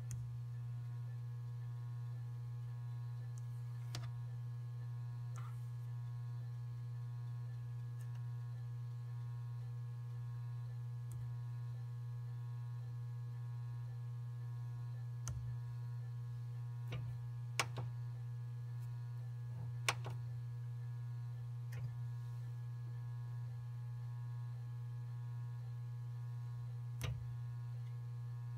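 Steady electrical hum from electronic equipment, with a constant set of thin higher tones over it. Scattered light clicks and taps break in now and then, a couple of sharper ones a little past the middle.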